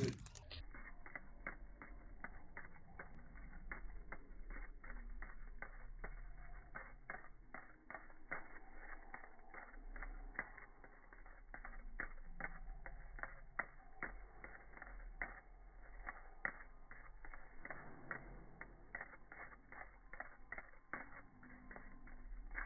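Slowed-down, pitched-down audio from a slow-motion recording: a steady run of dull clicks, about three or four a second, over a low hum.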